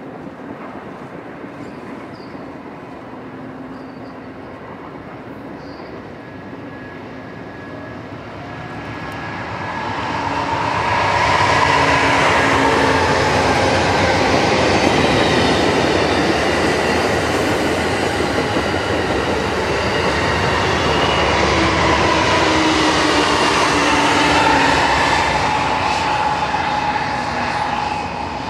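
Amtrak passenger train led by a GE P42DC diesel locomotive approaching and passing close by. The sound grows loud from about ten seconds in as the locomotive and cars go by, with wheel and rail noise and some whining tones that bend in pitch. It eases off near the end.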